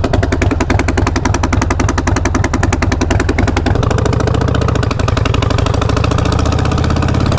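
Harley-Davidson V-twin engine running loud, with rapid, harsh exhaust pulses from a leak at the front cylinder's exhaust port, where the header nuts have come off. Its note changes about four seconds in.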